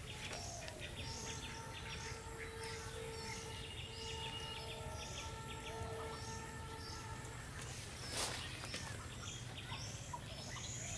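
Outdoor rural ambience with a bird repeating a short high call over and over, and a single sharp knock about eight seconds in.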